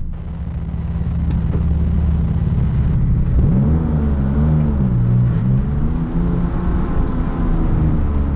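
Porsche 997 GT2's twin-turbo flat-six idling, heard from inside the cabin. About halfway through, the engine speed briefly rises and falls a few times as the car creeps forward.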